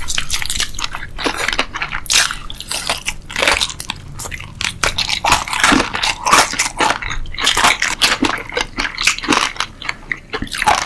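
A person eating close to the microphone: many quick, irregular crunchy bites and chewing.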